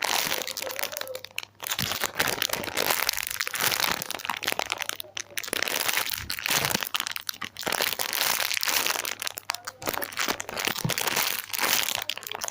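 Plastic packaging crinkling continuously and unevenly as a squishy toy is handled and squeezed inside its wrapper, with a couple of brief pauses.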